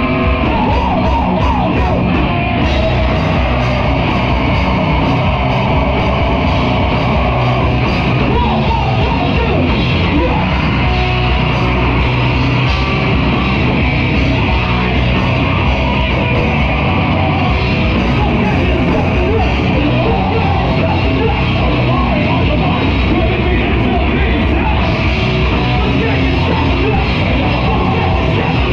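Live heavy rock band playing at full volume, with a vocalist yelling into the microphone.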